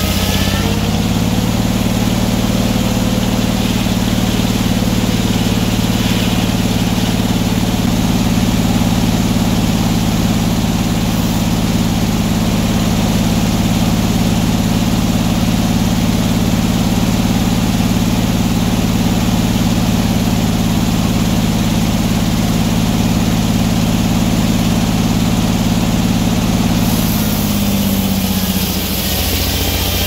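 Engine-driven circular sawmill running steadily while the carriage feeds a log through the big circular blade. The pitch steps up about a second in and drops back near the end.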